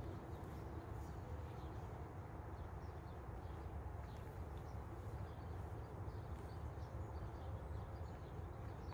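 Faint outdoor ambience: a steady low rumble with many small, high bird chirps scattered over it.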